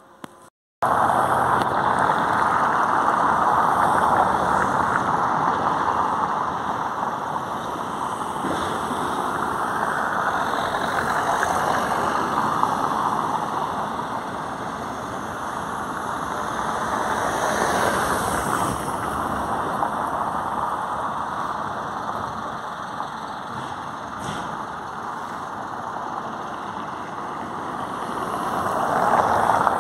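Steady street traffic and vehicle engine noise. It cuts in abruptly just under a second in, after a brief silence, and swells a little around the middle and again near the end.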